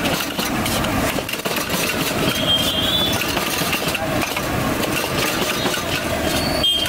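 Gas burners of a street-food stall running steadily under a large wok, with a metal spatula scraping the wok as noodles and manchurian are stir-fried.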